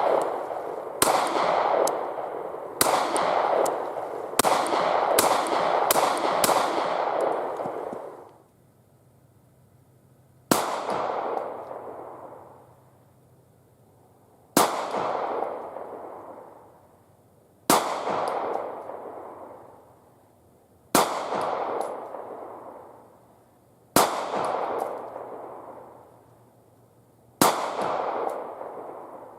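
Glock 43 9mm pistol firing outdoors: a quick string of about ten shots, then six single shots about three seconds apart. Each report is followed by a long echo trailing away.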